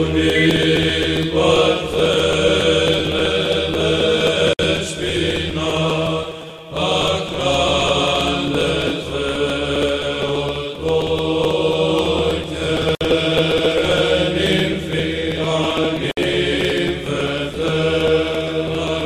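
Background music of chanting voices over a steady low drone note, with a brief pause between phrases about six and a half seconds in.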